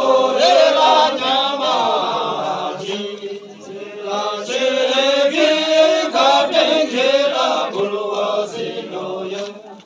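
Buddhist chanting by voices holding long, steady-pitched phrases, with a short dip about three seconds in and a fade near the end.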